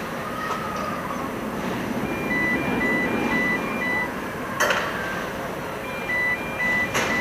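Amusement ride's electronic warning signal beeping in two alternating tones, about two beeps a second, in two spells, over steady rumbling ride machinery, with a couple of sharp clicks between.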